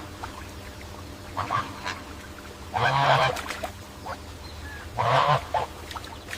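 Domestic waterfowl giving harsh quacking or honking calls: two faint short ones, then two louder half-second calls, over a steady low hum.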